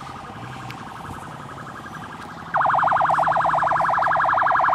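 Electronic vehicle siren sounding a rapid warble, sweeping up and down about a dozen times a second. It is faint at first, then about two and a half seconds in it comes on loud and close.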